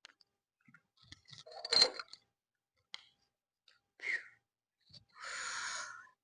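Handling noises from plastic and diecast model parts: scattered light clicks and taps, a sharp knock about two seconds in, and a short hissing rustle near the end.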